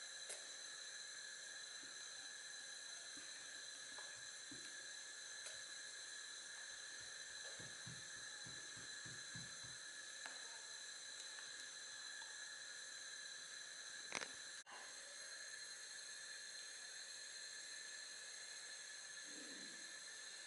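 Faint steady hiss with a thin high whine. Over it come soft strokes of a spatula stirring a coffee cream in a glass bowl, bunched together about a third of the way in, and a single click about two-thirds of the way through.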